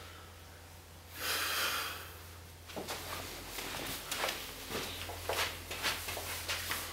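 A man's hard breath out about a second in, at the end of a set of chin-ups, then a run of soft taps and shuffles from about three seconds in as he moves about on carpet. A steady low hum sits underneath.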